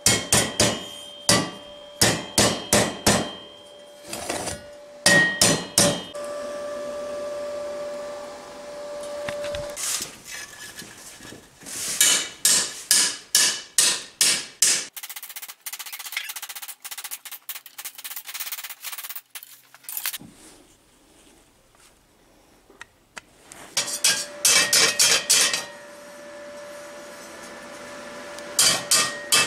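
Hammer blows on steel wheel parts: several bursts of quick taps, each followed by a metallic ring, as the steel disc inserts and flange are knocked into place on the rolled steel tread of a home-made railway wheel.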